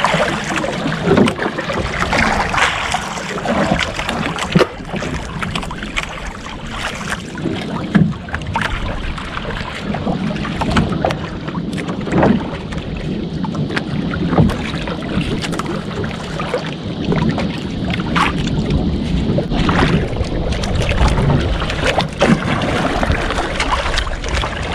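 Choppy sea slapping against the hull of a small outrigger boat, with wind buffeting the microphone and irregular knocks and splashes.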